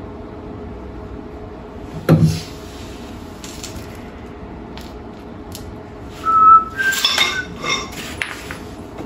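Metal tools and parts handled during a pause in welding, over a steady low hum. A single knock about two seconds in, then a brief high tone and a quick run of short ringing metallic clinks near the end.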